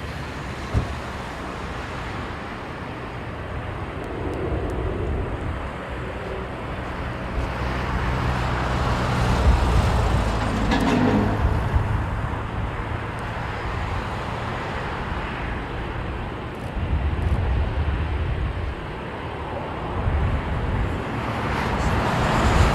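Rolls-Royce Trent XWB turbofans of an Airbus A350-900 at takeoff power, heard as a broad jet roar and rumble that swells to its loudest around the middle. A single sharp click sounds about a second in.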